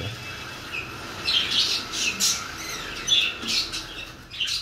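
Birds chirping and squawking: short high calls, about six in a few seconds.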